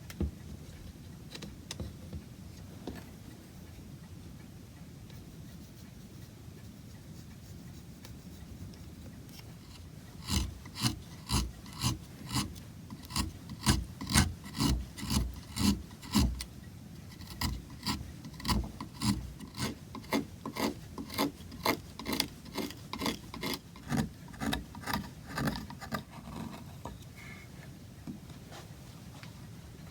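Wood rasp or file worked in steady back-and-forth strokes, about two a second, shaping a small piece of oak; the strokes start about ten seconds in and stop a few seconds before the end, with only faint handling sounds before them.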